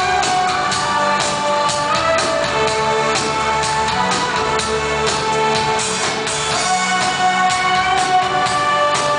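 Live synth-pop band music played loud through a venue's sound system: sustained keyboard tones over a steady drum beat.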